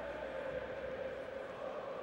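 Football stadium crowd: a steady din of many voices, with fans singing a long held chant.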